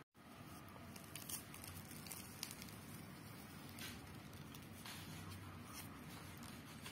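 Faint crackling and rustling of a flaky-pastry curry puff being torn apart by hand: a few soft crackles over a steady low hiss, after a split-second dropout at the very start.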